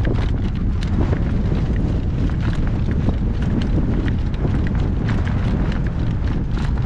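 Gale-force wind buffeting the microphone in a heavy, steady rumble, with frequent sharp clicks and knocks from a driven horse's hooves and harness.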